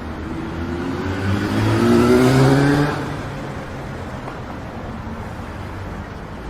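A motor vehicle's engine accelerating past on a city street, its pitch rising and loudest about two to three seconds in, then fading into steady traffic noise.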